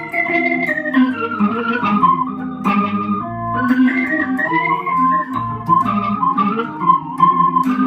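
Electric guitar played through a Boss SY-300 guitar synthesizer's B3 organ patch, sounding like a Hammond organ: held chords with a melody moving over them.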